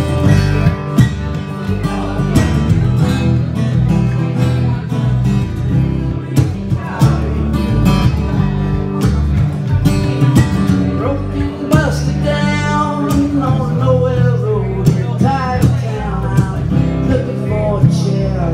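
Acoustic guitar strummed live, with a man's singing voice over it in the middle of the stretch.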